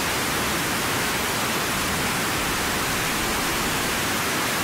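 Loud, steady hiss of even noise, unchanging throughout, with no other sound in it.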